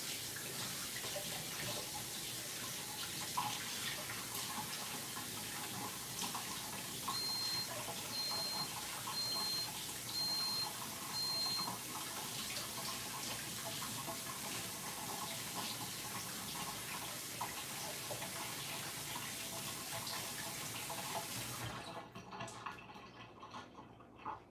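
Kitchen tap running steadily into the sink as hands are washed under it, shutting off sharply about two seconds before the end. Partway through, five short high beeps come about one a second.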